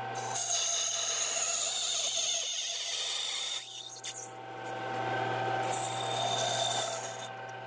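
Small Chinese 3-in-1 lathe-mill-drill running with its chuck spinning while a turning tool takes a cut along a Delrin plastic bar: a steady motor hum with a gear whine, dipping briefly about four seconds in.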